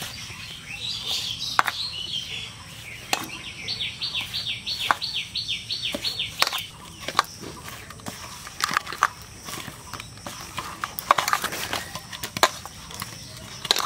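Hand kneading wet atta dough in a steel bowl: soft squelches and sharp taps of dough and fingers against the metal, busiest in the second half. A bird sings behind it, chirping near the start and then giving a quick run of about a dozen high falling notes.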